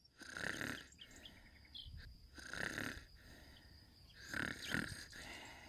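A cartoon character snoring while asleep, three quiet snores about two seconds apart.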